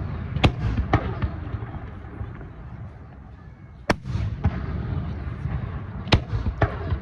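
Aerial fireworks bursting overhead: five sharp bangs, two in the first second, one about four seconds in and two close together near the end, with a low rolling rumble of echo between them.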